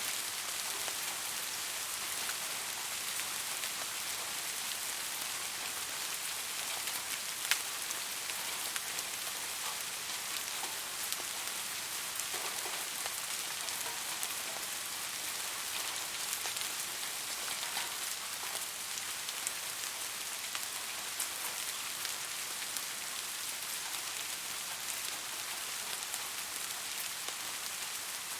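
Steady rain falling, an even hiss with scattered individual drops ticking close by, one sharper drop hit about 7.5 seconds in.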